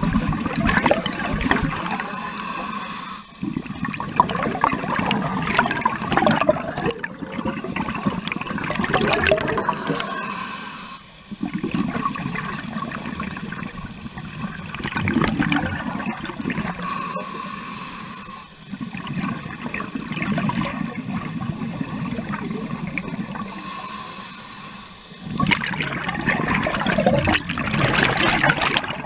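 Scuba regulator breathing heard underwater: slow breaths in and out, each exhale a loud rush of gurgling bubbles, coming in surges several seconds apart.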